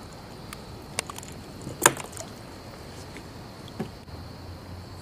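Handling noises in a kayak: a few sharp clicks and knocks over a steady hiss. The loudest knock comes just under two seconds in.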